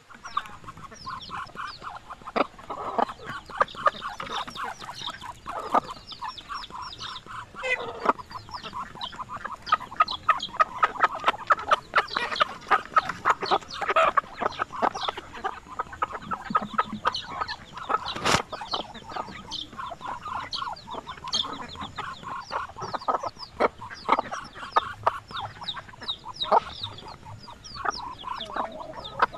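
A feeding flock of chickens and Muscovy ducks: chickens clucking, with a dense run of quick clicks and snips as bills pick at the grass and the odd short call.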